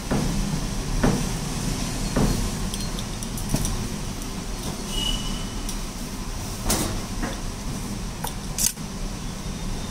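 Steady low rumble of street background noise, with about eight scattered sharp knocks and clicks and a brief high beep about halfway.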